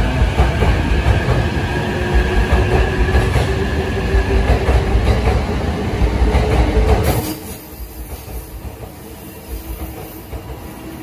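JR East E657 series limited-express electric train moving slowly along the platform: a loud rumble of wheels on rails with a whine that slowly rises in pitch. A little after seven seconds in the sound drops suddenly to a quieter rumble.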